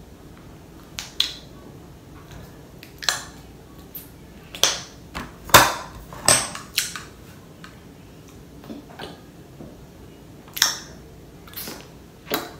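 Clear plastic eyeshadow palette case and makeup brushes handled on a hard countertop: about ten sharp plastic clicks and taps at irregular intervals.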